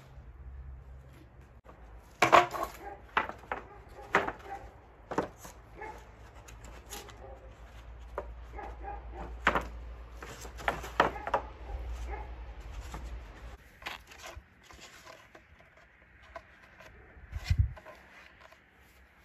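Wooden tongue-and-groove boards knocking and clattering against each other as they are picked up from a pile and handled: a run of sharp, irregular wooden knocks, the loudest near the start.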